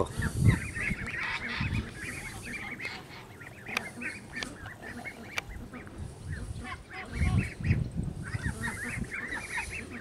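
A flock of young ducks, white Aylesburys among them, calling all together: many short, high, overlapping peeps and chatter. It thins out in the middle and grows busier again near the end.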